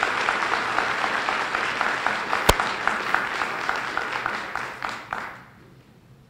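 Audience applauding, a dense patter of clapping that dies away about five seconds in. A single sharp knock stands out about two and a half seconds in.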